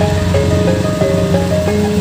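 Background music: a melody of short notes stepping up and down over a steady low bass.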